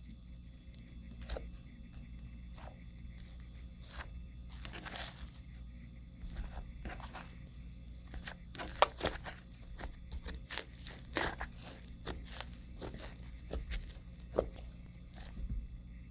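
Cloud cream slime being stretched, squeezed and torn in the hands, giving irregular soft pops, clicks and small tearing sounds, busier in the second half.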